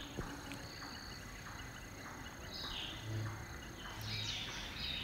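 Birds chirping: a few short high calls and descending chirps early on, then a busier run of calls near the end, over a faint steady high whine.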